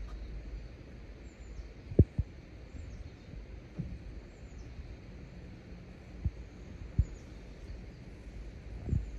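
Outdoor ambience: a low rumble with irregular low thumps, the loudest about two seconds in, and faint high bird chirps now and then.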